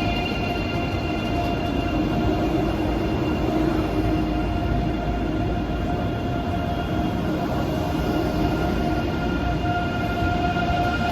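ICE 4 electric high-speed train pulling out of the station: a steady electric whine of several tones over a continuous low rumble.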